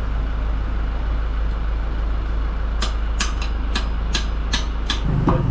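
About three seconds in, a quick run of about seven sharp metal clicks, roughly three a second, as the tyre is worked back onto the Yezdi Adventure's spoked motorcycle rim by hand. Under them runs a steady background hum.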